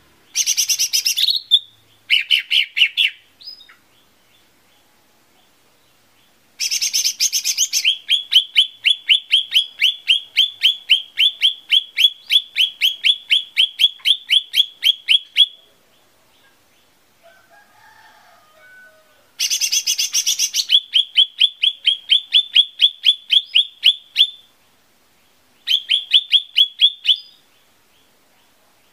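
Cucak ijo mini (a small leafbird) singing in separate phrases. Each opens with a loud, sharp burst and runs into a fast string of evenly repeated chirps, about four a second, with pauses of a few seconds between phrases.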